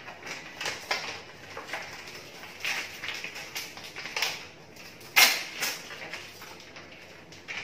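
Plastic bag crinkling and rustling as it is cut open with a kitchen knife and handled: a string of short crackles, the loudest about five seconds in.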